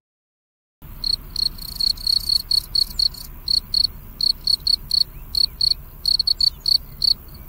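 Field cricket chirping: short, high-pitched chirps in quick uneven runs, about three a second, starting about a second in.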